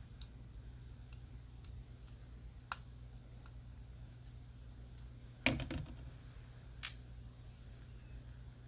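Scattered light clicks and ticks of tiny screws being backed out with a small screwdriver and handled against a die-cast car's metal base, with a louder cluster of clicks about five and a half seconds in. A steady low hum sits underneath.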